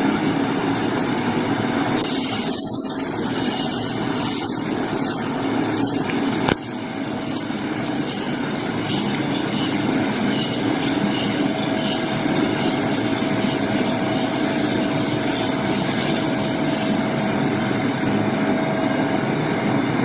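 Drum roasting machine running, its rotating drum pouring roasted seeds out of the front opening in a steady stream. There is a sharp click with a slight drop in level about six and a half seconds in.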